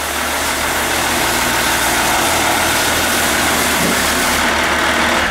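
Diesel engine swapped into a Land Rover Discovery 3, running steadily at idle.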